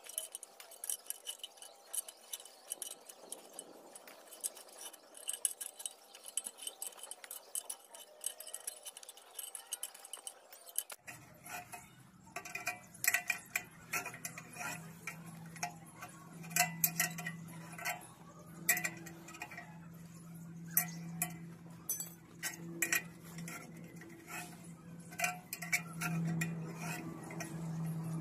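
Light metallic clicks and clinks, many in quick succession. About eleven seconds in, a steady low hum joins them.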